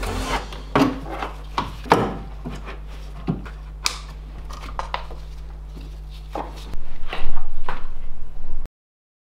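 Sharp plastic clicks and knocks as a coolant expansion tank is set into place and its hose connections are clipped on, over a low steady hum. About seven seconds in comes a louder stretch of rubbing and knocking as the camera is handled right at the microphone, and the sound cuts off abruptly just before the end.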